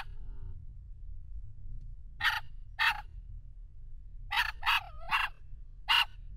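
Dogs barking: about six short, sharp, high-pitched barks in irregular clusters over a low steady rumble.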